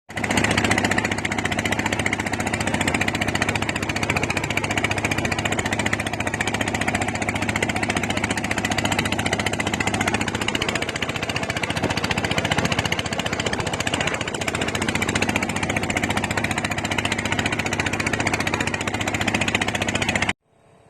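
A motor engine running steadily and loudly, with a dense rattling hiss over it, then cutting off suddenly near the end.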